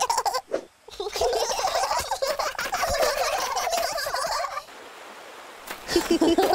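Rapid, warbling, gobble-like cartoon animal voices chatter for about three and a half seconds. They give way to a brief soft rushing lull near the end.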